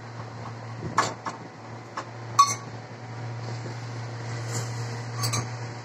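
Steady low hum with a few light knocks, and one clear metallic clink of steel kitchenware that rings briefly, about two and a half seconds in.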